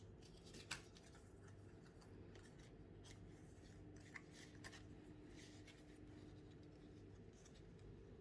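Faint handling of Pokémon trading cards: soft swishes and small clicks as cards are slid and turned, over a low steady hum.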